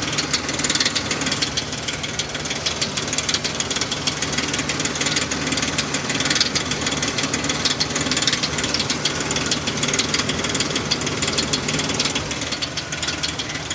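A 2003 Ford Explorer's 4.0-litre SOHC V6 idling steadily with a fast, continuous rattle, a noise that shows up only when the engine is hot.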